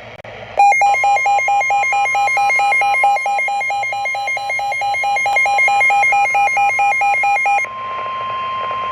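Emergency weather alert tones: a weather radio receiver's harsh electronic alert siren switches between two pitches about four times a second. Under it runs the steady single-pitch NOAA Weather Radio warning alarm tone, which signals an incoming warning. The siren cuts off about three-quarters of the way through, and the steady tone carries on.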